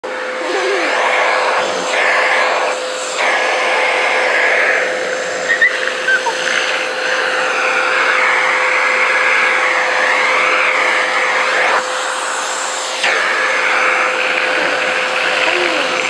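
Vacuum cleaner running steadily with a constant whine, its suction hiss shifting as the hose's brush nozzle is drawn over a toddler's hair.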